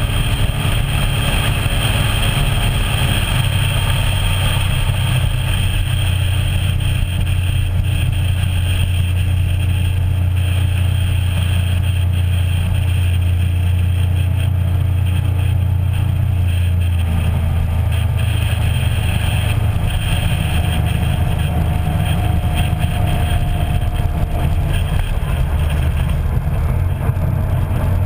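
Motorboat engine running steadily with the boat underway, a strong low hum whose pitch shifts slightly a few times, over a rush of wind and water.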